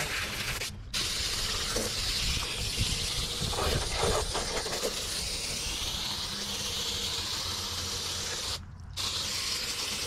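Water jetting from a garden-hose pistol-grip spray nozzle onto the fins of a dirty heat pump outdoor coil: a steady hiss of spray that stops briefly twice, about a second in and near the end, as the trigger is let go.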